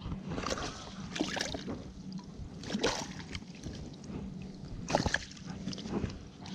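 Water sloshing and splashing in and around a landing net as a black bass is released from it, in several short, sudden splashes.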